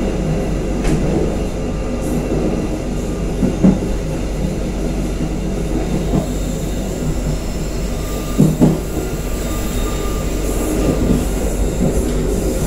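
Passenger train coach running along the track, a steady rumble of wheels on rails with a couple of heavier thumps, about four and eight and a half seconds in.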